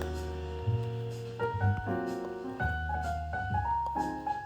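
Background jazz with piano chords over a walking bass line.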